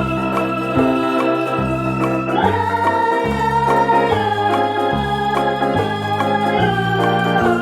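Background music played on an electronic organ: held chords over a bass line that changes note about once a second.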